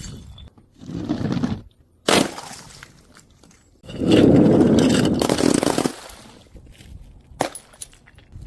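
A series of objects breaking and being crushed: a sharp crack just after two seconds, then a longer, loud crunching stretch from about four to six seconds, and a few small clicks near the end.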